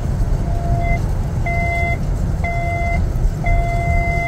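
Steady low rumble of truck and road noise from a moving vehicle, with an electronic beeper over it sounding three short beeps about once a second, then a long steady beep starting near the end.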